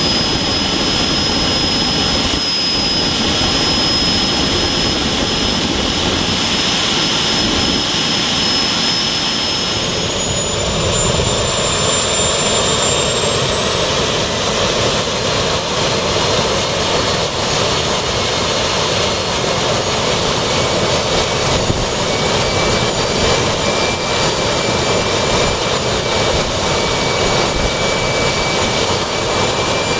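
Handmade stainless-steel turbojet engine running on a test stand: a continuous roar with a high turbine whine over it. About ten seconds in the sound shifts, and the whine then climbs slowly in pitch as the engine speeds up.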